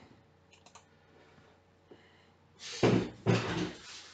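A few faint clicks of a computer keyboard and mouse, then two loud bursts of rustling and knocking near the microphone as a person gets up from a chair at the desk.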